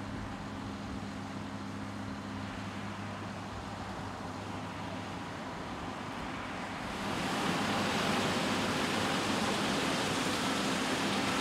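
John Deere S790i combine harvester running with a steady engine hum; about seven seconds in the sound grows louder and a strong hiss comes up over the hum.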